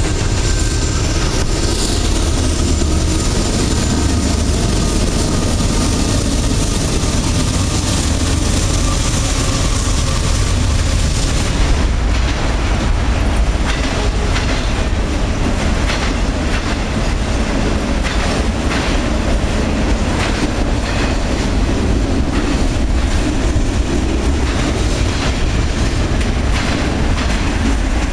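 Freight train rolling past with a steady low rumble. Autorack cars clack rhythmically over the rail joints.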